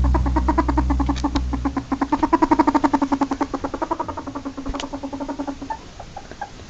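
Ferret dooking: a fast, chattering run of pitched clucks, about ten a second, which breaks off near the end. A low steady hum sounds under it for the first two seconds, then fades.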